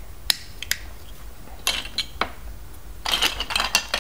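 Plastic LEGO DUPLO bricks clicking as they are handled and snapped together. A few separate sharp clicks come first, then a quick run of clattering clicks near the end.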